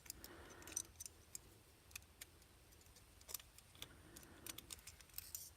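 Faint small metallic clicks and ticks, a handful of scattered taps, from a screwdriver bit working at the screw in a Master Lock Pro Series 7045 padlock's body.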